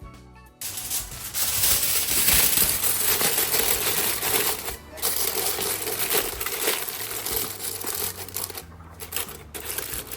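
Loud, continuous clinking and rattling of many small hard objects, starting about half a second in, with a short break around five seconds and another near the end.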